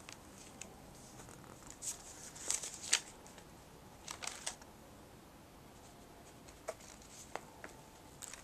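Paper pages of a collaged sketchbook rustling as a hand lifts and turns them: short bursts of rustling, the loudest about two to three seconds in and again around four seconds, with a couple of light paper ticks later.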